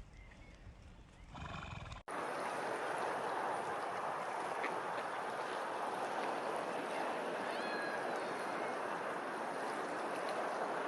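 A horse whinnies briefly, then after a sudden cut a steady rush of running water fills the rest, with a few faint bird chirps over it.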